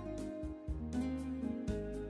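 Instrumental background music with a steady beat and repeated bass notes.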